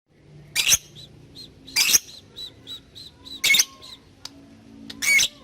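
Lovebird calling: four loud, harsh screeches about a second and a half apart, with runs of short, quick 'tik' chips between them. This is the 'ngetik' call, used to challenge a rival lovebird and set it off into long trilling ('ngekek').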